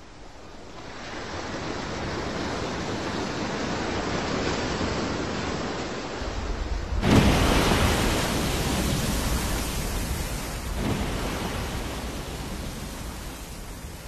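Wind on the microphone and open-sea water noise, a steady rushing hiss that builds up. There is a sudden louder surge about seven seconds in and a smaller one near eleven seconds.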